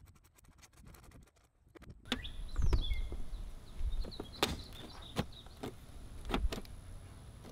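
Plastic front horn cover panel of a Piaggio Fly scooter being pressed onto the front shield, its clips knocking into place in several sharp knocks. A run of faint quick ticks comes first, and birds chirp in the background.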